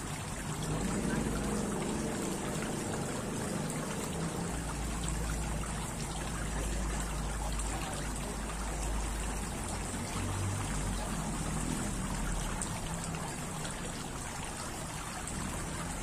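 Tiered stone garden fountain running: water trickling and splashing steadily into its basin, with a low rumble coming and going underneath.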